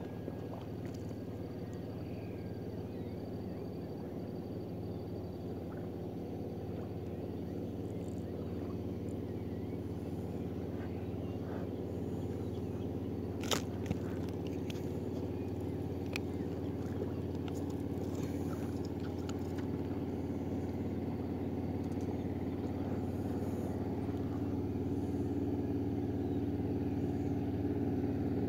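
Steady low drone of a distant motorboat engine, slowly growing louder, with one sharp click about halfway through.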